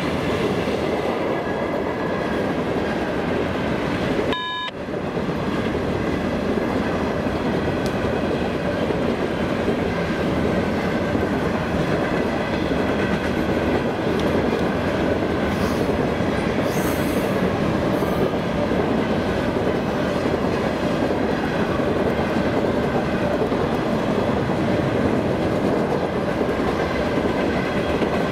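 Freight train cars rolling past on the rails, a steady rumble of wheels on track. The sound drops out briefly about four seconds in.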